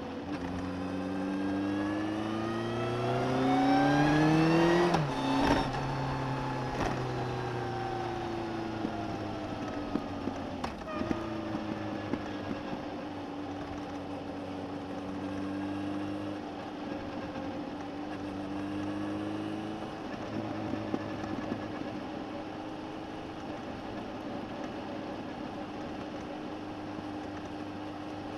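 Suzuki GSX1250FA's inline-four engine, picked up by a microphone under the seat, revving up under acceleration for about five seconds, then dropping sharply off the throttle. The pitch falls as the bike slows, and the engine settles into a steady, even note for the rest of the time.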